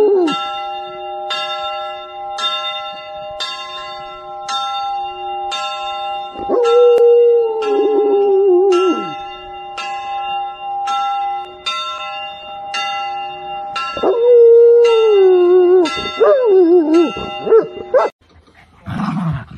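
A Komondor howling along with church bells that ring about twice a second. There are three long howls, each rising and then sliding slowly down in pitch: one at the start, one about six seconds in and one about fourteen seconds in. Bells and howling stop suddenly near the end.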